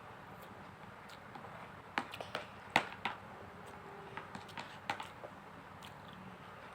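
Eating utensils clicking and scraping against a plate during a meal: a scattered run of short, sharp clicks, the loudest about three seconds in.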